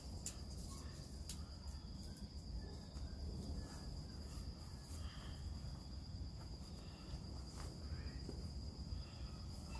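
Steady high-pitched trill of crickets outside, with a few faint taps and rustles of something being handled.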